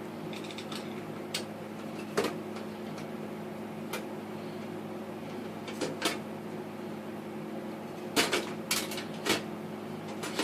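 Scattered small clicks and knocks of a screwdriver backing screws out of a hard drive and its bay holder, with a cluster of louder taps near the end, over a steady low hum.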